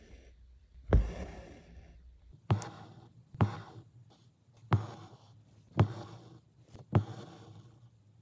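Embroidery needle and stranded cotton thread passing through fabric stretched taut in an embroidery hoop during satin stitch. Six stitches come roughly one a second, each a sharp tap as the thread goes through, followed by a short fading swish as it is drawn tight.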